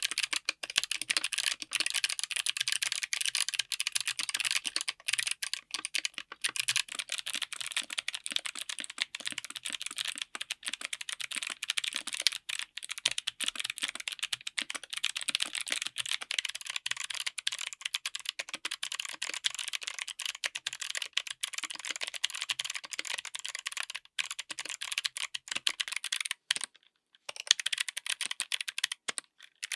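Fast, continuous typing on a mechanical keyboard fitted with clicky switches: a dense run of sharp, high clicks, broken by a brief pause near the end.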